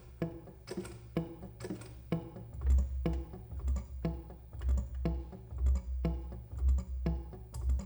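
Live experimental music: a steady pattern of short clicking strikes with a pitched ring, about two to three a second. A deep pulsing bass comes in about three seconds in and swells and drops after that.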